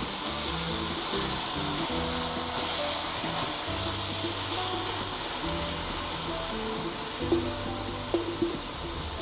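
Boiled grated carrots sizzling steadily as they are tipped into hot ghee in a pan, under background music of held notes.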